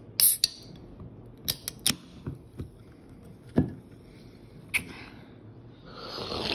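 Aluminium Sprite soda can cracked open by its pull tab: a sharp pop with a short hiss, followed by a few small clicks of the tab and a knock.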